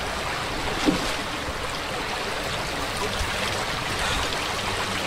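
Steady rushing of a flowing creek's water, with one short louder sound about a second in.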